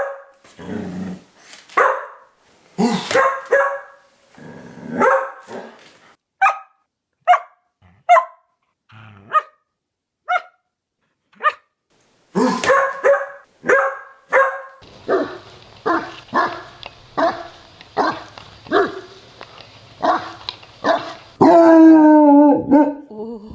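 A dog barking repeatedly: irregular barks, then sharp single barks about once a second, then a faster run of barks, ending in a longer drawn-out call that falls in pitch.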